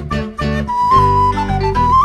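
Electro-acoustic folk barn-dance music: a high melody line with held notes over a steady rhythmic accompaniment.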